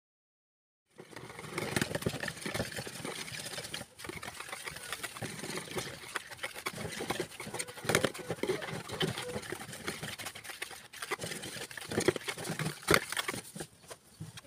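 A wire balloon whisk beating a creamy mixture in a plastic mixing bowl by hand, starting about a second in: quick, uneven scraping and clicking of the wires against the bowl, with a few sharper knocks.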